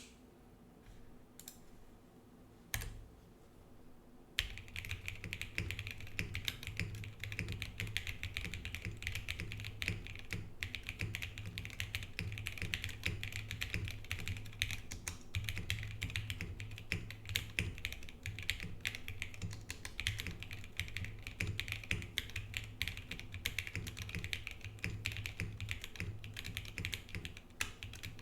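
Geonworks Frog TKL mechanical keyboard with SP-Star Meteor White switches, PBT XMI keycaps and an aluminium plate on rubber tadpole mounts, being typed on. A few separate key presses come first, then about four seconds in it turns into steady, fast continuous typing.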